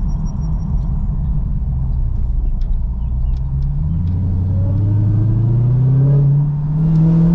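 Dodge Challenger Hellcat's supercharged 6.2-litre V8, breathing through a Corsa aftermarket air intake, rumbling at low revs and then accelerating from about halfway through, its note climbing steadily in pitch.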